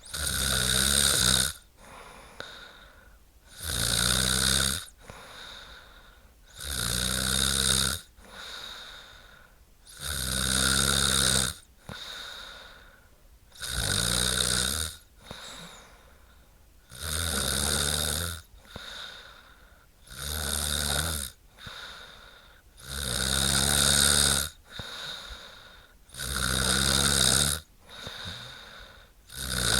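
A woman snoring in a regular rhythm: a loud, low snore about every three seconds, each lasting a little over a second, with quieter breathing between.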